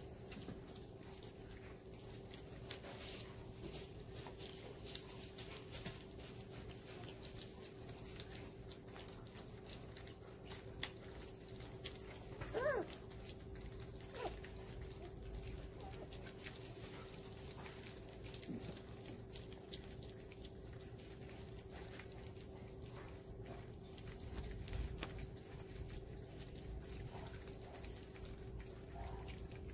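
Golden retriever puppies eating soft food from shared pans: a steady patter of small wet clicks and smacks from lapping and chewing over a low steady hum. About halfway through there is one short whine that rises and falls.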